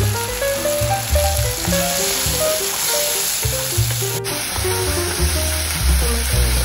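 Spice paste with dried red chillies frying in hot oil in a pan, sizzling steadily while a wooden spatula stirs it, under calm background music with a plucked melody and bass notes.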